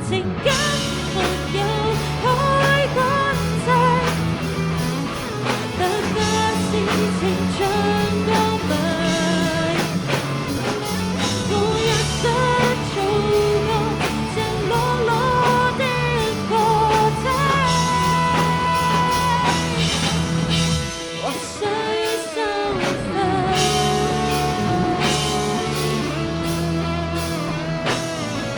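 Rock song with a sung lead vocal over guitar and bass; the bass drops out briefly about three quarters of the way through, then comes back.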